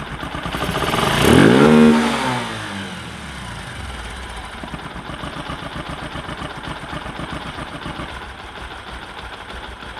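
Bajaj Discover 125's single-cylinder engine, running with its air filter off and its tappet clearances freshly reset, revved once, rising and falling over about two seconds, then settling back to a steady idle.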